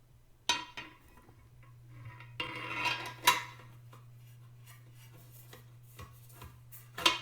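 The tray and parts of a Hamilton Beach electric meat grinder knocking and scraping as they are fitted: a knock about half a second in, a scraping slide ending in a sharp clack, a few light taps, and another clack near the end, over a steady low hum.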